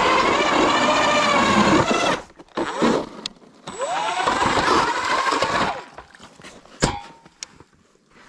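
StrikeMaster Lithium 40V electric ice auger's motor whining as the auger bores through lake ice, cutting off about two seconds in. It spins up again with a rising whine for a second run of about two seconds, then winds down. A single sharp knock comes near the end.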